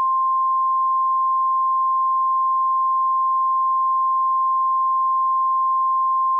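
Emergency alert attention tone: a single steady high beep, held unbroken at one pitch, the signal that announces an emergency alert message.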